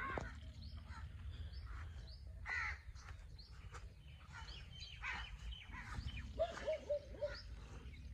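Crows cawing in bursts among many small birds chirping, with a quick run of short, lower calls near the end as the loudest moment. A steady low rumble of wind on the microphone runs underneath.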